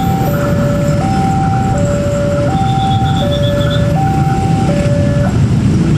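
Railway level-crossing warning alarm sounding a two-tone electronic chime, alternating high and low notes each held under a second, which stops about five seconds in as the barrier lifts. Under it, a dense rumble of many motorcycle engines idling and pulling away across the tracks.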